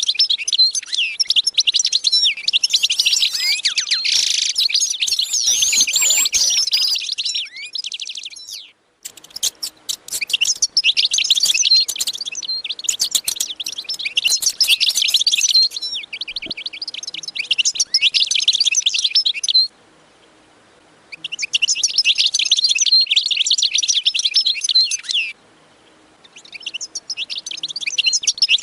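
Many small birds chirping and twittering rapidly and densely, the sound stopping abruptly for a moment three times: about a third of the way in, about two-thirds of the way in, and near the end.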